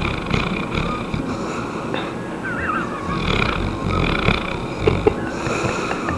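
Seven-month-old Saint Bernard puppy snoring in its sleep, a mild snore whose rasping breaths swell and fade, with two short sharp noises about five seconds in.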